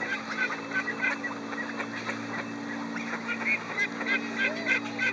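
Waterfowl on the pond calling: many short, repeated calls, over a steady low hum.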